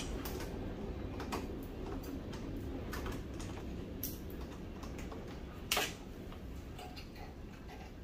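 Irregular light clicks and metal taps from hand tools working inside a stripped microwave's sheet-metal chassis, with one louder click near the middle, over a low steady hum.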